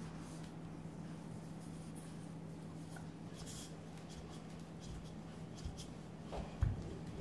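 Wooden rolling pin rolling out puff pastry dough on a floured stainless steel table: faint, soft rubbing, with a light knock near the end, over a steady low hum.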